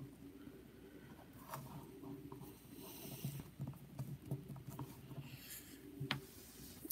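Faint clicks and rubbing of a small plastic action figure and its accessories being handled and pressed together, with a few sharp clicks spread through.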